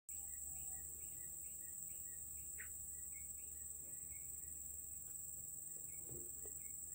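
Outdoor ambience: a steady high-pitched insect drone, with a bird giving short chirps over and over, a few a second.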